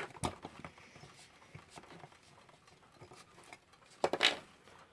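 Small scattered clicks and taps of an alarm clock's metal parts being handled and worked on by hand, with a brief louder clatter about four seconds in.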